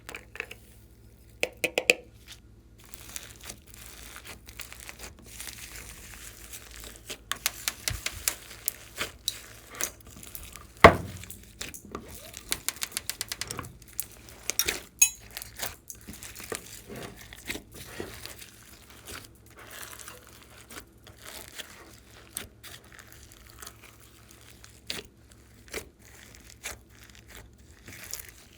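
Glossy slime being worked by hand: a long run of sticky crackles, clicks and small pops, with one heavier knock about eleven seconds in.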